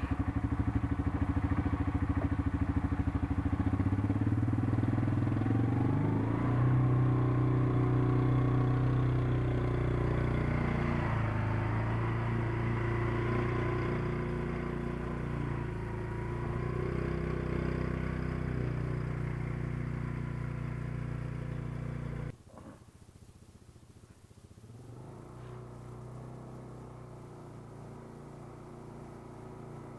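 200cc quad bike (ATV) engine running under way, its pitch rising and falling as the throttle changes. About two-thirds of the way through the sound drops off suddenly to a fainter, steadier engine hum.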